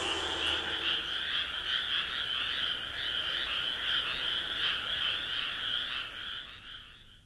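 Night chorus of frogs: a dense, steady trilling that fades out near the end.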